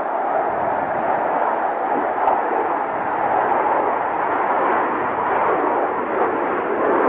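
Steady, distant jet roar from the Blue Angels' F/A-18 Hornets flying in tight formation.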